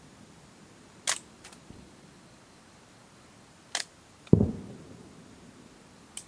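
Fireworks going off: a few sharp cracks, about a second in, just before four seconds and near the end, and about four seconds in a single deep boom with a rumbling tail, the loudest sound.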